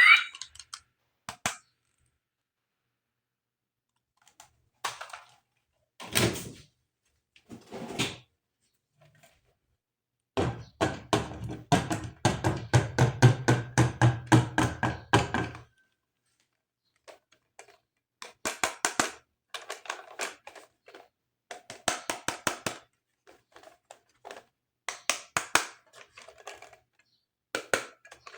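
Plastic toy pieces being handled: scattered clicks and knocks, with a run of rapid clicking over a low hum for about five seconds midway.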